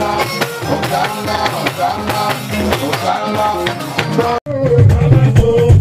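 Music with a man singing into a microphone over drums and percussion. About four and a half seconds in it cuts off abruptly and switches to louder music with a heavy bass.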